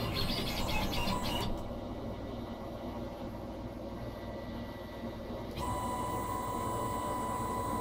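Small hobby CNC machine running, its motors making tonal whines that change: a pulsing high whine for the first second and a half, a quieter stretch, then a steady whine that comes in sharply at about two thirds through.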